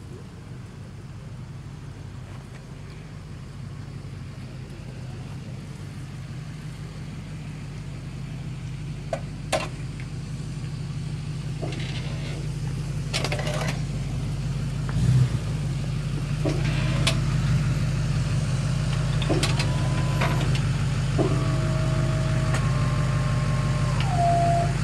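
Tow truck's engine idling steadily, growing louder as it is approached. A few clicks and a thump come about halfway, and some higher pitched sounds come near the end.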